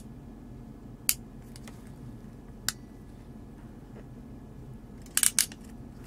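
Ratcheting JST XH crimp tool squeezing a terminal onto a wire. Single sharp clicks come about a second apart, then a quick run of clicks near the end as the ratchet releases and the jaws open.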